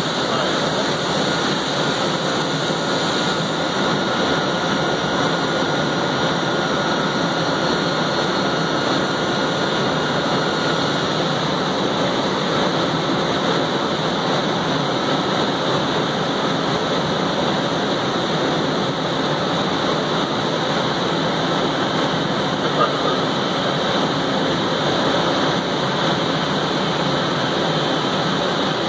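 Miyano LM-21 four-spindle CNC turning center running, its spindles turning parts with a steady, even machine whir and hiss. A faint high tone drops out about eleven seconds in.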